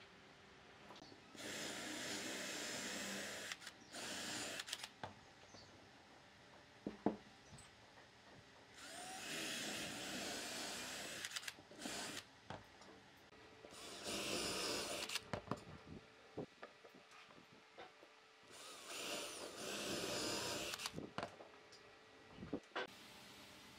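About five bursts of a handheld power tool working pine, each lasting one to two seconds, with short wooden knocks and handling sounds in the gaps between them.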